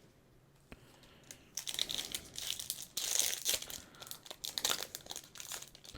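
Foil booster pack wrapper crinkling and being torn open by hand, an irregular crackle that starts about a second and a half in.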